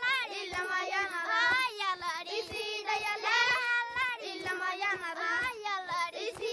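A group of Maasai children singing together, with a steady low beat about two to three times a second under the voices.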